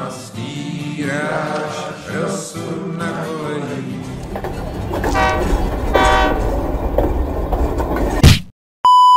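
Background music, then a low train rumble with two horn blasts from about four seconds in, ending in a loud crash that cuts off sharply. A steady censor beep sounds right at the end.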